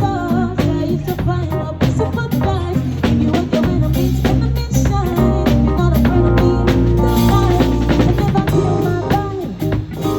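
Live band playing with a full drum kit: snare and rimshot hits over bass drum, bass and pitched instrument lines.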